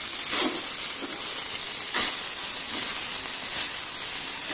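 Boiled rice frying in oil in a steel kadhai, giving a steady sizzling hiss, with a few scrapes of a wooden spatula stirring it through the pan.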